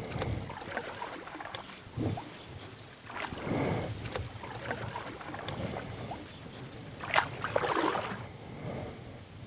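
Kayak paddle strokes splashing in river water, irregular and a second or two apart, with the strongest splash about seven seconds in.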